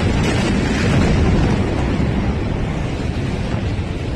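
Sustained roar of a massive explosion's blast overloading a phone microphone, with wind buffeting the mic. It runs on loudly from a sudden boom just before and fades slowly.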